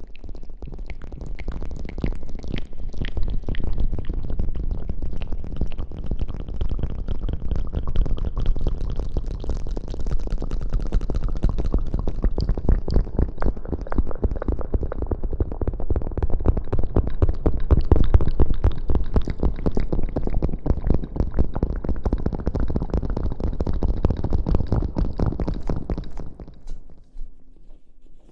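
Close-miked ASMR rustling: dense, continuous crackling and rubbing right on the microphone, stopping about 26 seconds in.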